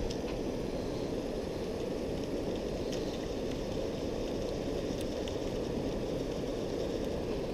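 Steady, low, muffled rush of flowing river water.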